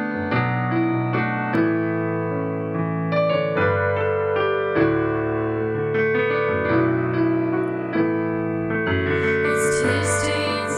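Keyboard piano playing slow, held chords that change every second or two: the accompaniment of a gentle song in a passage without singing.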